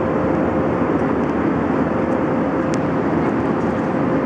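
Steady aircraft cabin noise in flight: the even rushing drone of engines and airflow, with a faint steady hum running through it.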